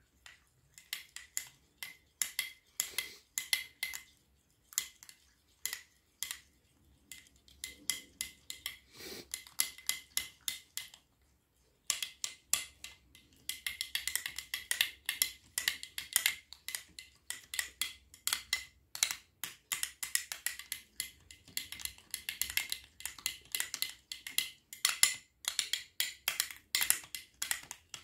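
A spoon stirring and scraping a thick, creamy hair-mask mixture in a small ceramic bowl: quick clicks and scrapes against the bowl. The stirring is patchy at first, pauses briefly, then becomes faster and steadier about twelve seconds in.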